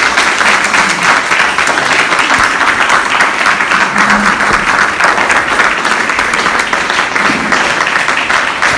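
Audience applauding, many hands clapping at once in a dense, loud wash.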